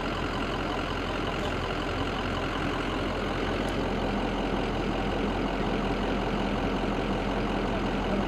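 An engine running steadily at idle, an even drone that does not change in pitch or level.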